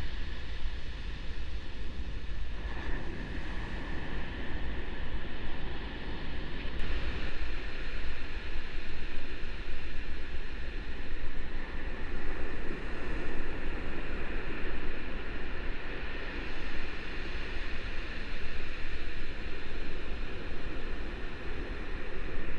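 Steady rush of ocean surf and moving water, with wind buffeting the microphone as a constant low rumble. The loudness swells and eases every few seconds.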